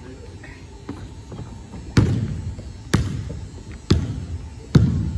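Basketball bouncing on a hard court: a couple of light taps, then from about two seconds in four heavy bounces roughly a second apart, each leaving a short echo.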